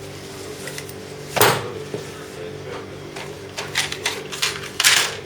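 A sharp knock, then a run of clicks and knocks of things being handled during a repair, over a steady hum.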